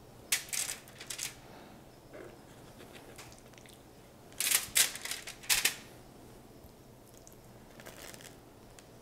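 Aluminum foil on a sheet pan crinkling and ticking as crumb-coated fish fillets are set down on it, in two short spells: one just after the start and one about halfway through.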